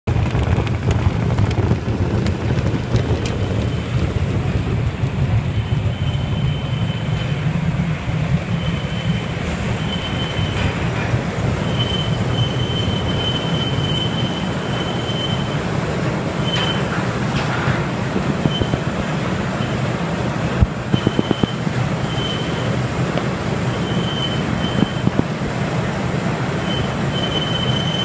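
Potato conveyor and piler equipment running: a steady loud mechanical rumble and rattle, with a high squeal that comes and goes, and a few sharp knocks about three quarters of the way in.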